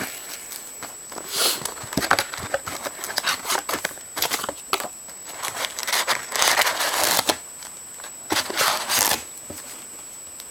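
Plastic wrapping on a trading card box or pack being crinkled and torn open: a run of crackles and clicks with a few longer ripping rasps, about a second and a half in, again around seven seconds and near nine seconds.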